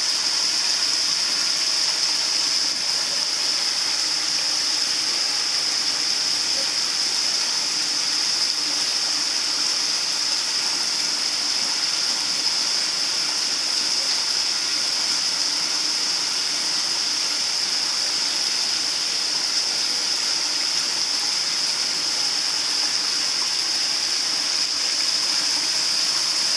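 Water pouring steadily from a wide spillway outlet into a pond, a constant splashing rush.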